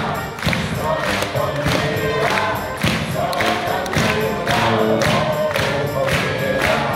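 A small band of tuba, guitars and drums playing a song, with several voices singing together over a steady beat of about two strokes a second.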